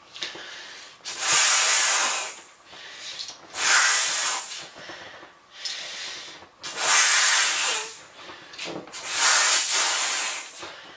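A person mouth-inflating a large vinyl beach ball, blowing hard into its valve toward bursting it. There are four long hissing blows of about a second each, roughly every two and a half seconds, with quieter breaths in between.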